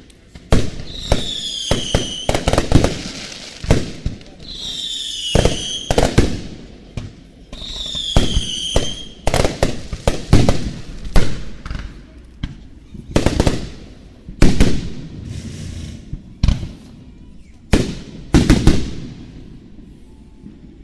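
Fireworks going off close by: a quick run of sharp bangs and crackling bursts. In the first half, three high whistles about a second long each fall slightly in pitch.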